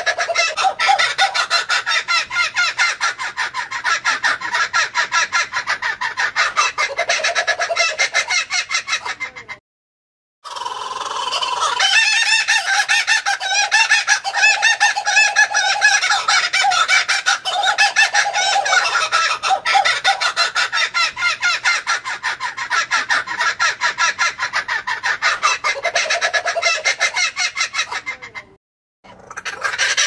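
Laughing kookaburra calling in long bouts of rapid, pulsing laughter. The calling breaks off briefly twice, and after the first break it builds up again to full loudness.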